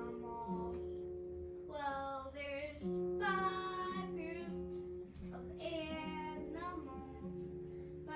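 A child singing a melody over steady instrumental accompaniment, in phrases of a second or two.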